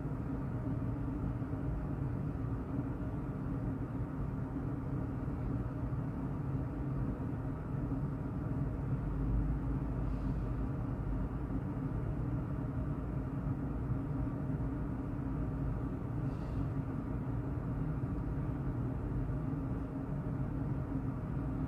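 Steady low mechanical hum and rumble from running room machinery, with two faint brief ticks about ten and sixteen seconds in.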